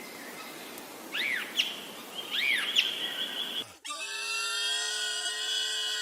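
Short arched chirping calls, two pairs, over outdoor background noise, with a brief steady whistle behind the second pair. Then an abrupt cut to a steady, even drone with many overtones.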